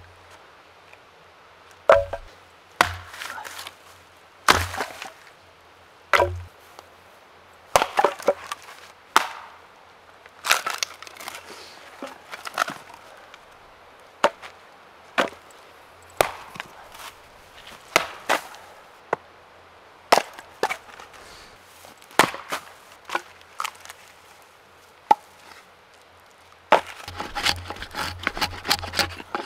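Gränsfors hatchet splitting firewood into kindling on a chopping stump: sharp chops and the crack of splitting wood, one every second or two. Near the end it changes to a quick run of short strokes as the hatchet works down a stick held upright on the stump.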